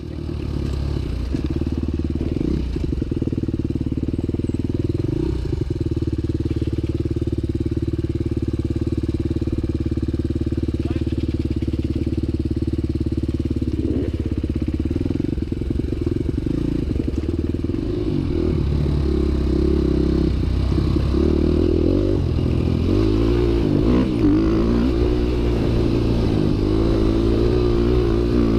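Motorcycle engine running close to the microphone, holding a steady speed for about the first half, then rising and falling in pitch repeatedly as the throttle is worked.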